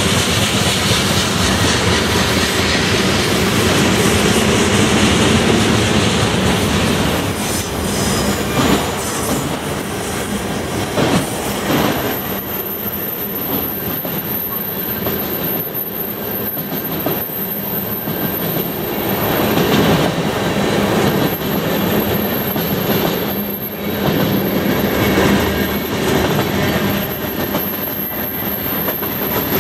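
Freight cars of a Canadian National mixed freight train, covered hoppers and tank cars, rolling past close by. Their wheels rumble and clack over the rail joints, and a thin, high wheel squeal comes in about halfway through.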